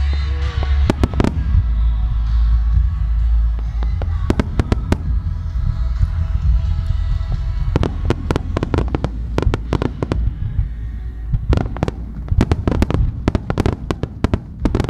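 Fireworks display: sharp bangs of launching and bursting shells and mines over music. The bangs are scattered at first and come thick and fast from about eight seconds in.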